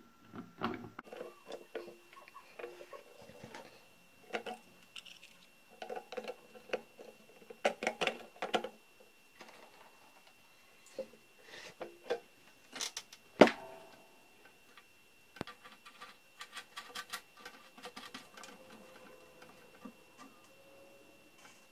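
Irregular light clicks, taps and knocks of a plastic digital panel meter and other small parts being handled and pressed into a sheet-steel enclosure door, with one sharp louder click about halfway through.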